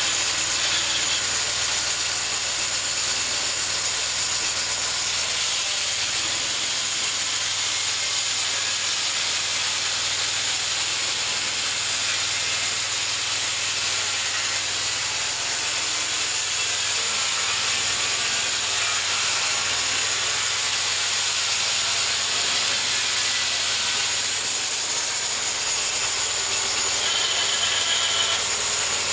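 Homemade bandsaw mill running steadily as its blade saws lengthwise through a cherry log: a continuous loud hiss over a steady low hum.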